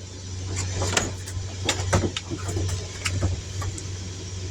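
Scattered clicks and knocks of tools and parts being handled while a tire repair kit is fetched and opened, over a steady low hum.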